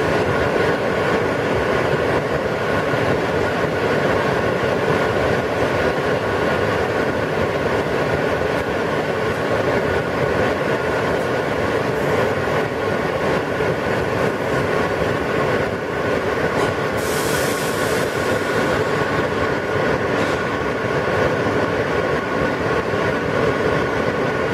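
Interior of an R143 New York City subway car running steadily along the track: a loud, even rumble of wheels on rail with steady humming tones, and a brief high burst of noise about 17 seconds in.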